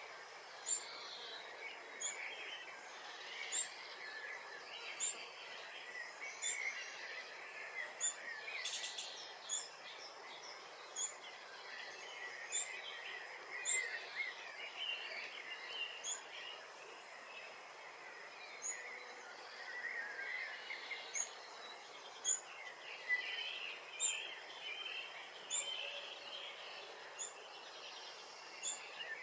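Short, very high chirps from a bird, repeated regularly about every second and a half, over a steady background of other birdsong.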